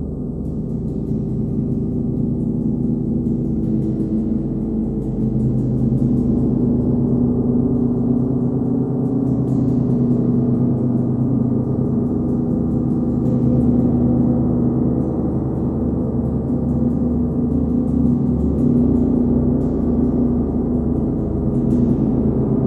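A 39-inch Nepalese wind gong rings in a dense, sustained wash of many close tones with a low, pulsing throb. The ring swells slowly, kept going by light strokes of a hard rubber ball mallet every few seconds.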